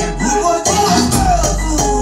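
Music with a deep bass line playing loud through a home speaker box with two subwoofers and ten 6x9 speakers. The bass drops out for about half a second shortly after the start, then comes back.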